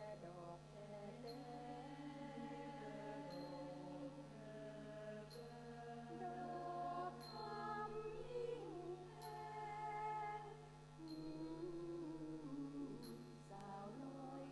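Women's choir singing a cappella in several parts, a choral arrangement of a central Thai folk song, with long held notes that move together from chord to chord. A steady low hum runs underneath, and faint high ticks come at an even pace, the clearest about every two seconds.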